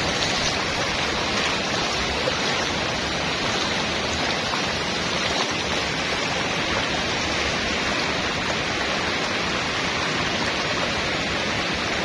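Steady rushing noise of water, even and unbroken throughout.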